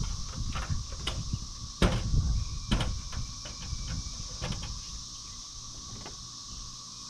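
A handful of wooden knocks and clunks, the loudest about two seconds in, as someone works inside a timber-framed shed: footsteps on the plywood floor deck and a stepladder being set up. A steady insect drone carries on underneath.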